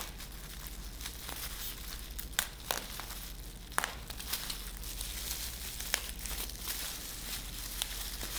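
Packaging of a pair of wireless earbuds being opened by hand: crinkling and tearing, with scattered sharp crackles.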